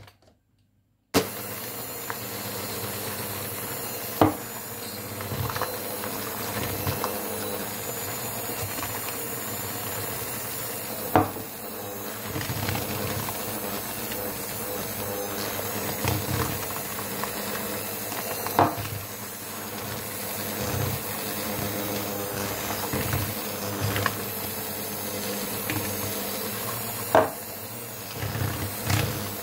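Electric hand mixer switching on about a second in and running steadily, its twin wire beaters churning thick muffin batter in a plastic bowl. A few sharp knocks come through as the beaters strike the side of the bowl.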